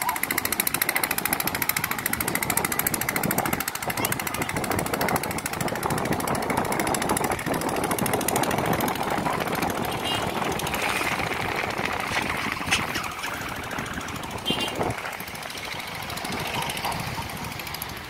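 Steady rattling and rumbling of a vehicle in motion, a fast, even clatter that grows somewhat quieter toward the end.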